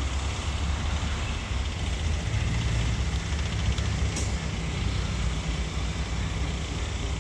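Vande Bharat electric train set running slowly through the station: a steady low rumble, with a low hum that comes in about two seconds in and fades shortly before the end.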